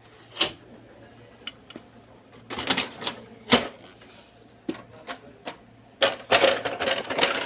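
Irregular clicks and clattering of hard laser-printer parts being handled: a single click, then short runs of rattling clatter about halfway through and again near the end.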